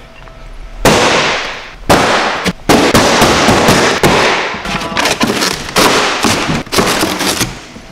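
Paper-faced foam board boat hull being punched through and torn apart by hand: a series of loud cracking and ripping bursts, starting about a second in and ending shortly before the end.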